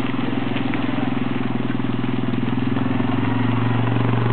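Quad bike (ATV) engine running at a steady idle, growing louder about three seconds in as the quad comes close.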